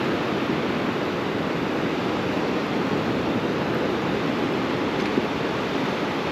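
Sea surf washing on a beach, an even steady rush of water noise.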